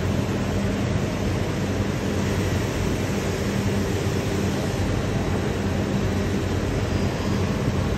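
Steady machinery drone inside a robotic laser hardening cell: an even rush of fan or air noise under a constant low electrical hum, with no separate clanks or strokes.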